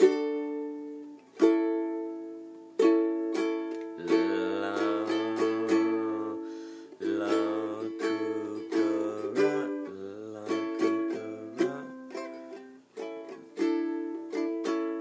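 Plucked string instrument strummed and picked in a series of chords, working out the chords for a song, with denser strumming and a few low notes in the middle.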